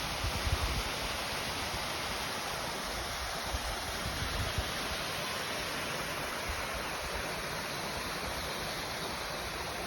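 Waterfall rushing steadily, with low wind bumps on the microphone right at the start and again about four seconds in.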